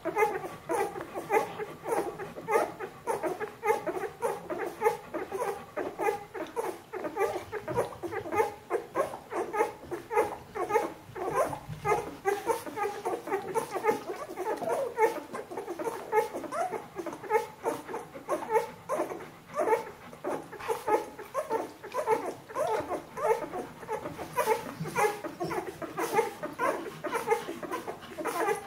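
A litter of two-week-old Bernese Mountain Dog puppies making small squeaking calls while they nurse, many short overlapping calls every second.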